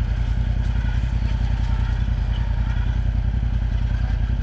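Side-by-side UTV engine idling steadily, a low even running hum with a fine regular pulse.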